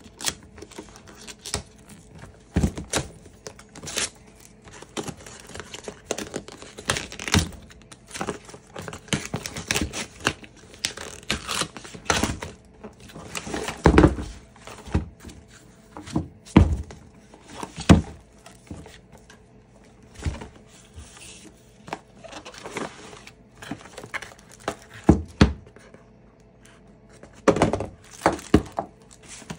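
Cardboard packaging being torn open and handled: paper tearing, plastic crinkling, and irregular knocks and thunks as the box and its contents are moved about, with a few louder knocks near the middle.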